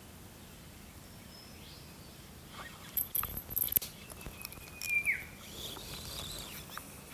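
Quiet riverside ambience, then several sharp clicks and rattles of a spinning reel being handled on a light rod, with a short high whistle that drops in pitch about five seconds in.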